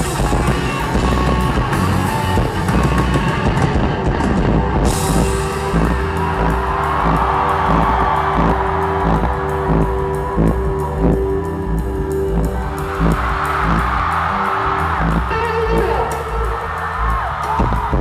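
Live rock band playing loud through a PA: a Stratocaster-style electric guitar over bass and a Ludwig drum kit with a steady beat.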